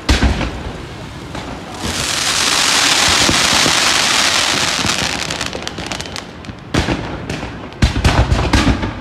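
Fireworks display: a sharp bang at the start, then a loud dense hiss of rising comets from about two seconds in. It breaks into rapid crackling pops with several heavy booms near the end as spark fountains fire.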